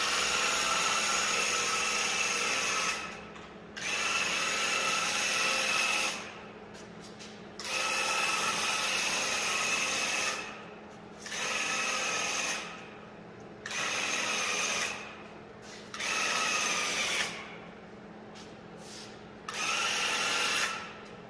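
Battery-powered Graco handheld airless paint sprayer running in seven bursts of one to three seconds as the trigger is pulled and released, a steady whining pump sound while spraying paint.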